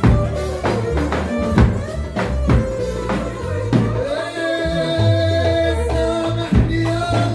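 Lebanese dabke music played live: a tabl, a large double-headed drum, is beaten about twice a second under a melody line, with held notes coming in about four seconds in.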